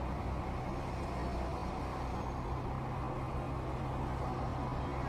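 Steady low engine hum and road-traffic noise heard from inside a car, with no sudden impacts.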